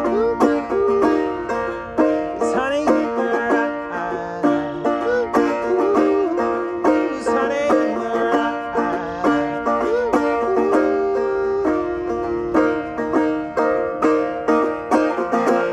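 Banjo picked in a steady run of quick plucked notes, some sliding in pitch.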